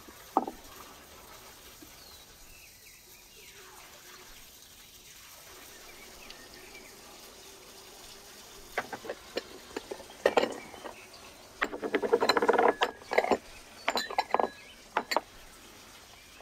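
Hands seasoning diced raw lamb with salt and ground red pepper on a wooden board: one sharp tap early on, then, in the second half, a run of taps and clicks from the spice containers and a short burst of rapid rustling clicks.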